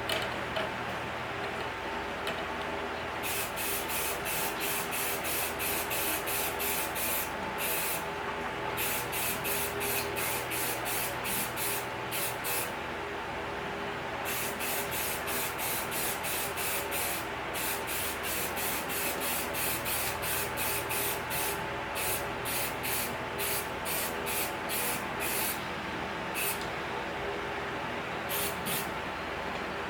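Aerosol spray can of flat black paint being sprayed in short repeated bursts, about two or three a second, with brief pauses between runs, as an exhaust pipe is repainted. A steady hum runs underneath.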